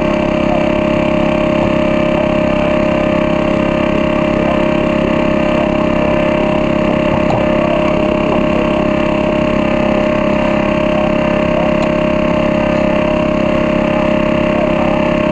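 An engine running steadily at constant speed, an even drone with a fixed pitch.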